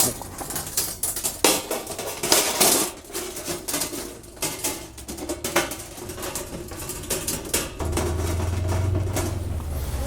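Stainless steel parts of a fire grill being handled and fitted together during assembly: irregular metal clinks, clanks and knocks as the legs are attached. A steady low rumble comes in about eight seconds in.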